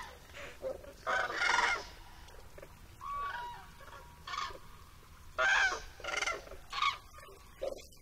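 Flock of common cranes calling at their roost: a string of separate trumpeting calls, some louder and nearer, others fainter.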